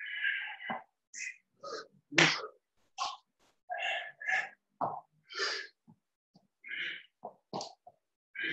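Sharp, hissing breath exhalations timed with punches during shadow-boxing: a quick, irregular string of short bursts, some in fast pairs, with silence between them.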